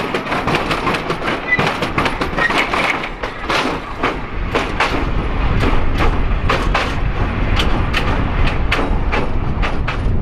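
Hythe Pier Railway's narrow-gauge electric train running along the pier, its wheels clicking over the rail joints in an irregular clickety-clack. A low rumble grows louder about halfway through.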